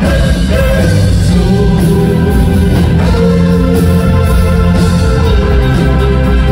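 Live rock band playing, with sung vocals over Hammond organ and electric guitar.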